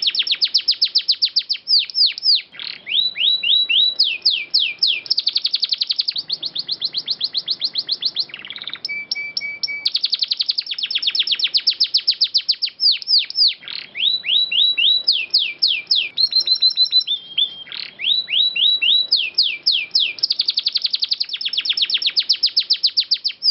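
Domestic canary singing a loud, continuous song of fast trills made of quick downward-sweeping notes, broken by brief pauses and a few slower phrases of separate notes.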